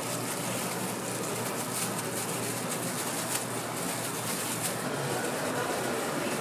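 Street-food stall ambience: a steady hiss with a few faint clicks.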